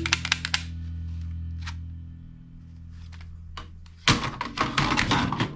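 A low held chord of background music fades out, with sharp clicks over its start. About four seconds in comes a short burst of rapid clicking and clatter, which stops near the end.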